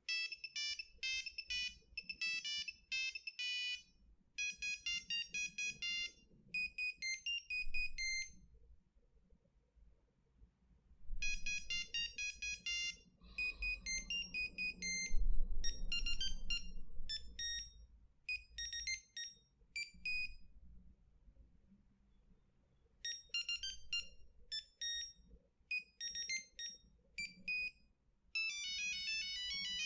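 Nokia 3310 original ringtones playing one after another: short monophonic melodies of high, clipped beeping notes, with brief gaps between tunes and a fast run of rapid notes near the end. A low thump sounds about halfway through.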